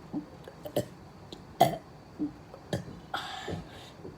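A man letting out a series of short burps, the loudest about a second and a half in, with a brief breathy hiss around three seconds in.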